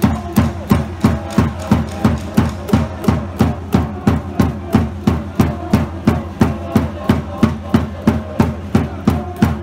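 A cheering-section drum beaten in a steady, even rhythm, about three beats a second, each beat with a low boom that drops in pitch.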